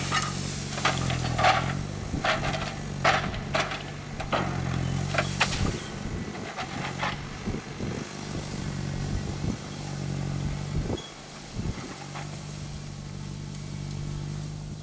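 Ponsse Wisent forwarder's diesel engine running steadily as the machine drives under a heavy load of brush. Over the first six seconds or so it is overlaid by a series of sharp cracks and snaps from the branches in the load. The engine note eases briefly about eleven seconds in.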